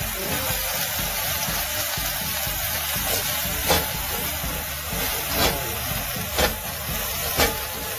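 Sliced leeks sizzling steadily in a hot stainless steel wok, with a metal spatula scraping and knocking against the pan four times in the second half as they are stirred.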